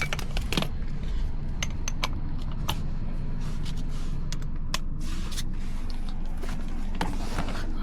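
Scattered sharp clicks and light clinks of hard plastic trim pieces and hand tools being handled while dash trim is worked off, over a steady low hum.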